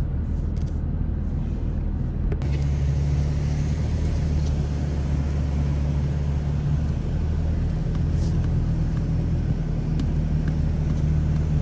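Vehicle engine and tyre noise heard from inside the cab while driving on beach sand: a steady low drone that grows louder about two and a half seconds in.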